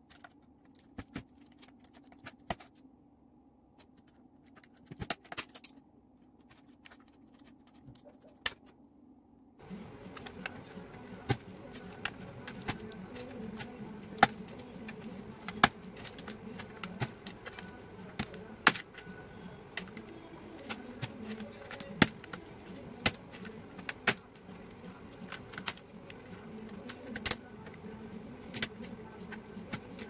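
Sharp plastic clicks and clacks at irregular intervals from the keycaps and switches of a mechanical keyboard being handled during a switch swap. About ten seconds in, a steady low hum comes in under them.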